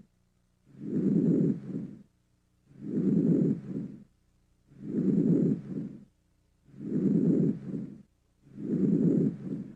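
Normal vesicular breath sounds heard through a stethoscope on the chest: a soft, low-pitched blowing noise, five breaths about two seconds apart. Each breath is a longer inspiration followed by a brief start of expiration, then a silent pause.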